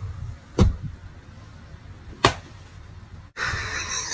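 Two sharp hand slaps about a second and a half apart. Near the end the sound cuts to a steady hiss.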